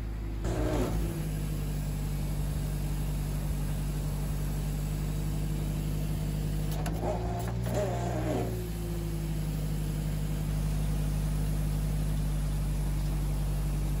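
Bulk feed truck's engine running at a steady hum while pellet feed is let out of its discharge outlet into sacks, getting slightly louder about two-thirds of the way through.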